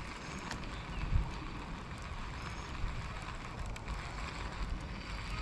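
Wind rumbling steadily on the phone's microphone while a baitcasting reel is wound in, with a few faint bird chirps and small clicks.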